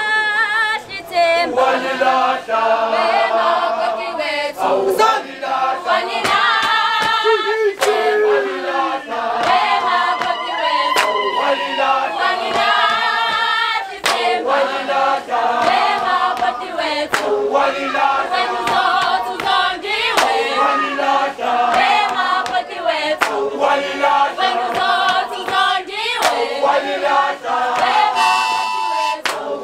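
A group of young women singing a Zulu song in unaccompanied chorus, with sharp hand claps scattered through it. A steady tone joins near the end.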